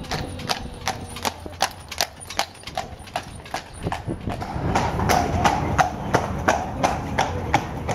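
Horse's hooves clip-clopping on cobblestones as a horse-drawn carriage passes, a steady clop about three times a second.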